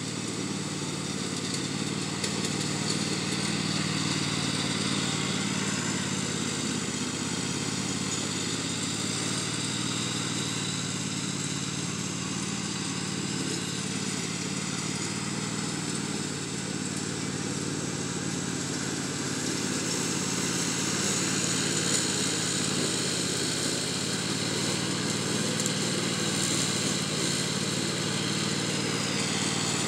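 Riding lawn mower's engine running steadily while mowing, its pitch wavering slightly.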